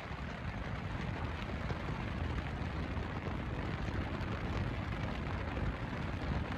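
Henrhyd Waterfall, a 27-metre fall, pouring steadily: a dense, even rush of falling water.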